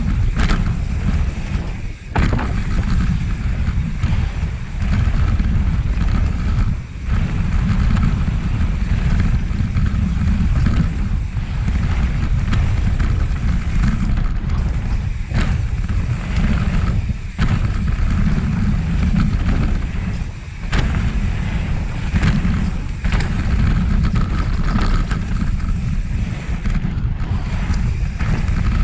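Wind buffeting a moving mountain bike rider's microphone in a steady low rumble, over tyre noise, with scattered knocks and rattles from the bike on the trail.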